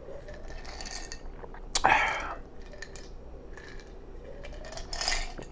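Close-miked eating sounds: soft mouth smacks and clicks, with a louder breathy mouth sound about two seconds in.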